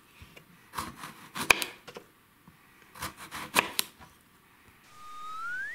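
Kitchen knife slicing through a raw eggplant onto a cutting board, a few sharp chops in two groups about two seconds apart. Near the end a rising electronic whistle sound effect starts.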